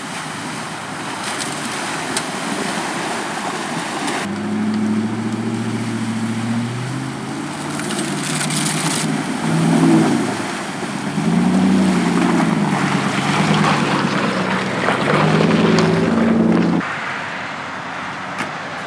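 A 4WD's engine running and changing revs over a steady rush of water and wind noise. The engine sound cuts in about four seconds in and stops abruptly near the end.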